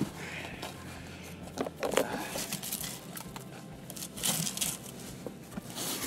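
Scuffs and a few sharp knocks of a climber's hands and shoes on rock as he pulls onto a boulder problem from a sit start.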